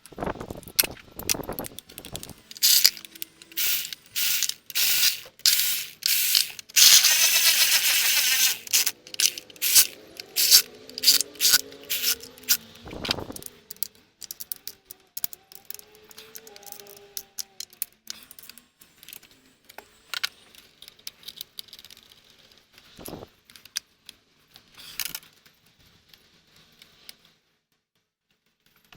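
Hand ratchet wrench clicking in short spurts, with one longer run of fast ratcheting about seven seconds in, then only scattered clicks.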